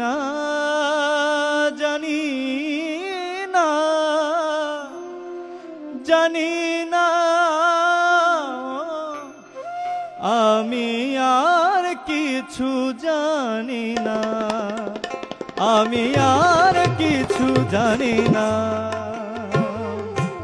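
Instrumental passage of a Bengali devotional song: a melody line with ornamented, wavering glides, joined by tabla drumming about two-thirds of the way through.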